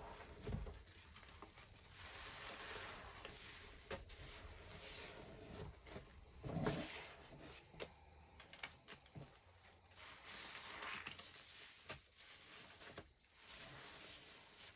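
Soft wet squishing and crackling of sponges being squeezed and rubbed through a thick foamy paste, with occasional dull knocks, the strongest about halfway through.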